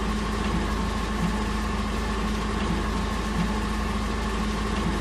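Steady mechanical hum, engine-like, with a low drone and a few faint steady tones that do not change.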